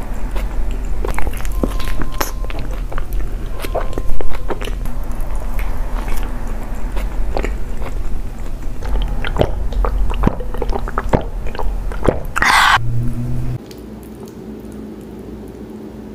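Close-miked chewing of a large burrito, with wet mouth clicks and smacks coming irregularly and steadily.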